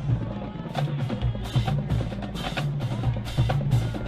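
Marching band playing, with a drumline's sharp snare and bass drum hits over a repeating low bass line.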